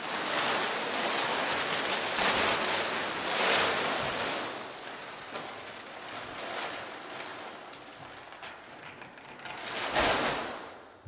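A loud, even rushing noise like surf or static, with no voice or tone, swelling a few times and peaking about ten seconds in.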